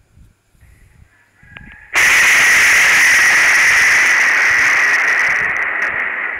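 Close lightning strike's thunderclap through a security camera's microphone: a sudden, very loud, distorted crack about two seconds in that holds for several seconds and then slowly fades.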